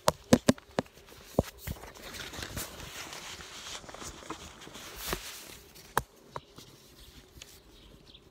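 Handling noise on a phone's microphone: irregular clicks and knocks close together in the first second or two, then a rustling scrape, and two more knocks about five and six seconds in, as the phone is fiddled with to get the stream working again.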